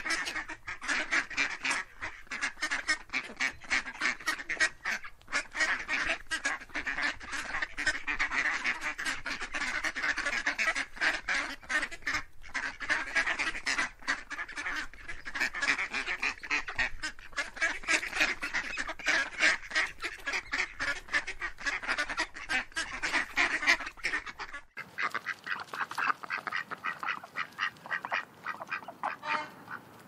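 A flock of domestic ducks quacking without pause, many rapid short calls overlapping. About 25 seconds in, the sound changes abruptly as the low background drops away, and the quacking goes on.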